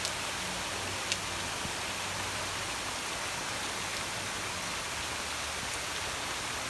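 Steady hiss of a heavy downpour, with rain falling on surfaces and runoff water rushing. A sharp tap at the very start and another about a second in.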